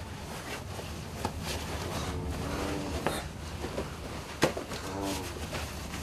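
Rustling and handling of a heavy sheepskin-lined Tibetan chuba robe as a man pulls it on and shrugs into it, with one sharp knock about four and a half seconds in.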